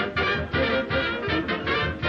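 Background music: an upbeat swing-style tune with brass and a steady beat.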